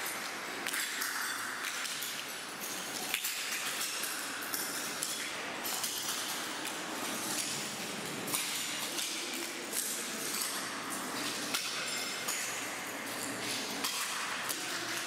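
Footsteps crunching over a floor layer of small brittle fragments, a continuous crackle of small clinks and clicks as the pieces shift and knock together underfoot.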